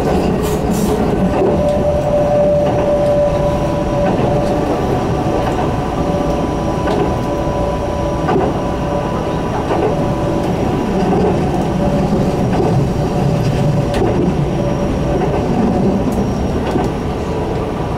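Keihan electric train running at speed, heard from inside the carriage: a steady rumble of wheels on rail under a steady whine, with a few faint clicks from the track.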